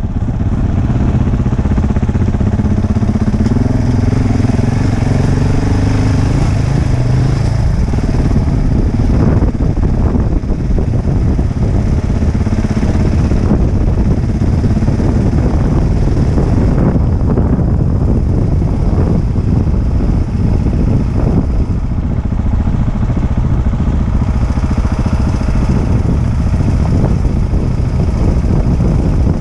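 Motorcycle engine running as the bike is ridden slowly along a rough dirt lane. The engine note holds a steady pitch for the first several seconds, then blurs into a rougher, noisier rumble for the rest.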